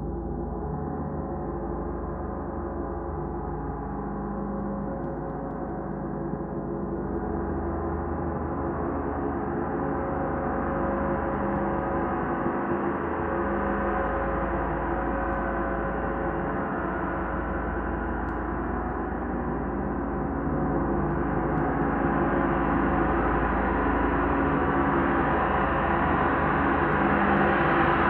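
32-inch Oetken Komet No. 3 gong played continuously with a soft felt mallet, no single strike standing out, its dense wash of many overlapping tones swelling steadily louder and brighter.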